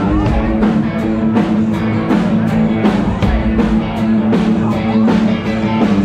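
Live rock band playing: a drum kit keeps a steady beat under electric guitar and keyboard.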